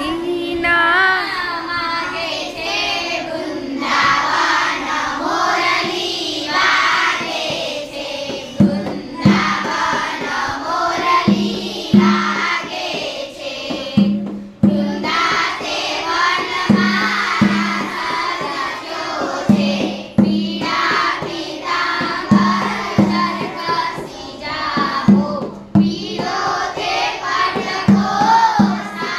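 A class of schoolgirls singing a Gujarati poem together. From about 9 seconds in, a low thumping beat keeps time under the singing, two thumps at a time.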